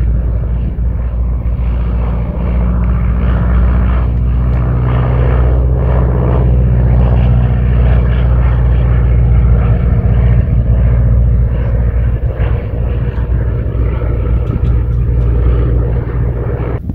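Engine drone of a small single-engine propeller plane flying low, steady throughout.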